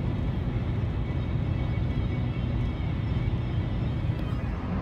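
Steady road and engine noise heard from inside a car moving at highway speed.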